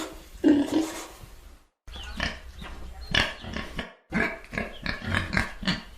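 Domestic pig grunting and oinking: one longer grunt, then runs of short, quick grunts, broken by two brief dead-silent gaps where separate recordings are joined.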